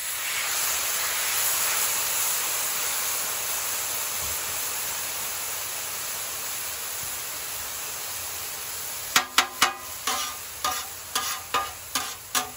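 Rice frying on a hot flat-top griddle: a steady sizzle that slowly fades. From about nine seconds in, a metal scraper and spatula tap and clink against the griddle plate several times in quick succession.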